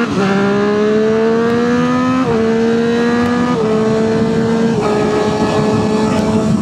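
Triumph Street Triple 765 RS inline three-cylinder engine pulling hard through the gears through an aftermarket exhaust with its baffle in. The engine note climbs in each gear and drops a step at upshifts about two, three and a half, and nearly five seconds in.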